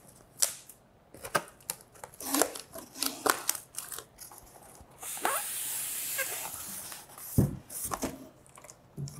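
Cardboard box flaps being opened and handled: scattered scrapes and clicks of cardboard. About five seconds in, a white foam packing insert slides out of the cardboard box with a long scraping rustle, followed by two low thumps.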